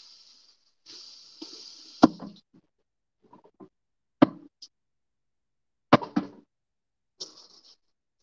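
Kitchen clatter from cookware and utensils being handled: three sharp knocks about two seconds apart, each with a short ring, the first the loudest, with a brief hiss around it.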